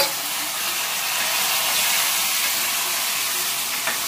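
Boiled green peas, just dropped into hot oil with sliced onion and capsicum in an aluminium kadai, sizzling with a loud, steady hiss. A sharp click comes right at the start and a short knock near the end.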